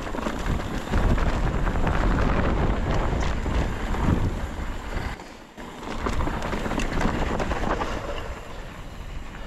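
Wind buffeting the microphone while riding a mountain bike, over the noise of tyres rolling on gravelly dirt trail, with a few sharp clicks and rattles from the bike. The rush eases briefly about five and a half seconds in.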